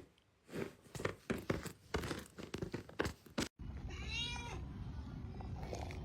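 A rapid run of sharp clicks and knocks for about three and a half seconds, then a cat meowing once, a short call that rises and falls in pitch, over steady background noise.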